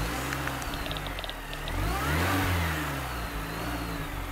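Car engine running and revving once, rising then falling in pitch about halfway through, as an intro sound effect under an animated logo.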